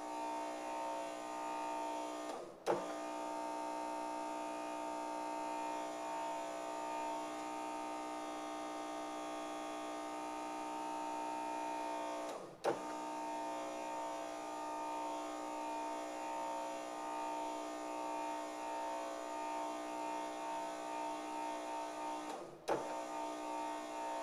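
Two small DC motors standing in for a Mercedes W124's fuel pumps, running with a steady whine through the MAS relay. About every ten seconds they briefly drop out, then restart with a sharp click: this is the relay's fuel-pump cutout tripping as the simulated engine speed passes the red line, then switching the pumps back on once the speed falls.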